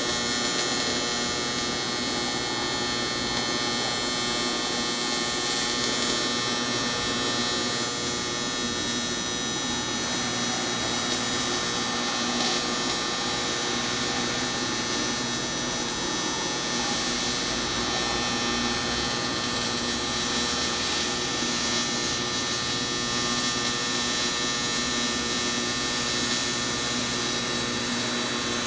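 Welding arc on cast aluminum making a steady electric buzz.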